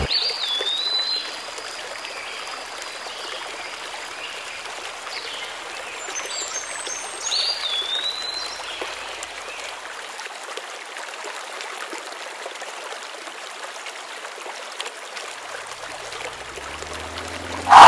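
Steady rushing hiss like running stream water, with two short chirps, one near the start and one about eight seconds in, and a sudden loud burst right at the end.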